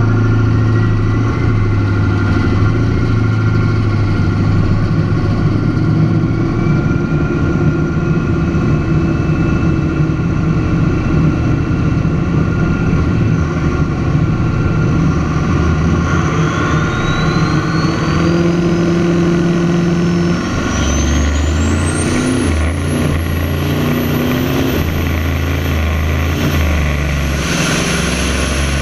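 A drag car's engine running loud and steady on the start line, together with the Cummins diesel pickup in the next lane. A thin whine climbs slowly in pitch throughout. The low engine sound shifts about two-thirds of the way through, and the car is moving down the strip near the end.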